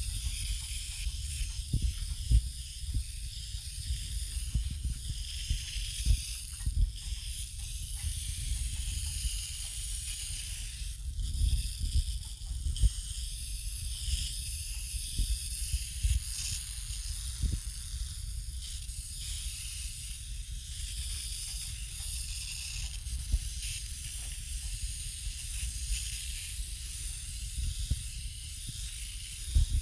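A fine shower of water hissing steadily as it is sprayed over potted succulents and their gravel top-dressing, with a low rumble and occasional soft thumps underneath.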